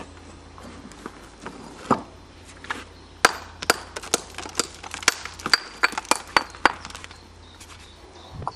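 Brick axe striking a reclaimed glazed brick, chipping old lime mortar off it so the brick can be reused: sharp knocks, a few spaced out at first, then a quicker run of about a dozen at roughly three a second.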